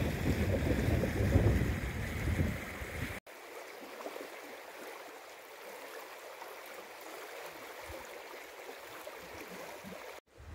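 Wind buffeting the microphone for about three seconds, then, after a sudden cut, a river's water rushing steadily.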